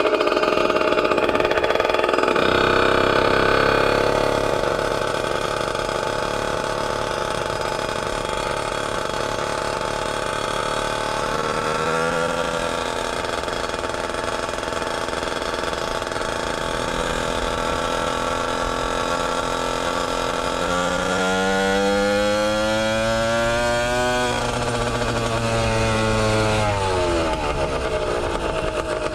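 70cc motorized bicycle engine running under way as the bike is ridden. It revs up briefly a little over ten seconds in, then about twenty seconds in climbs in pitch for a few seconds, holds, and falls back as the throttle is eased.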